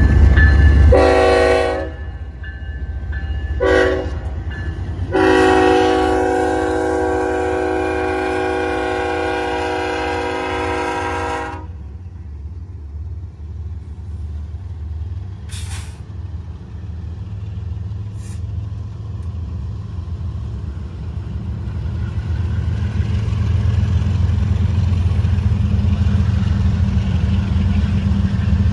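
Multi-note air horn of a BNSF diesel locomotive sounding for a level crossing: a short blast, a shorter one, then one long blast of about six seconds. Under and after it comes the low rumble of the diesel locomotives pulling the train past, growing louder near the end as a second locomotive goes by.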